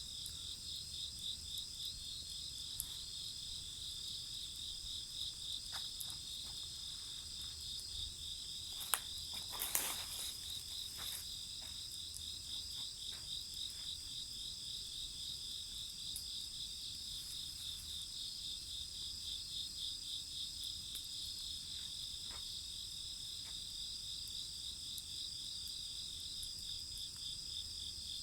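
Crickets trilling steadily, one with a fast, even pulsing trill. A few sharp crackles from a wood bonfire, the loudest cluster about a third of the way through.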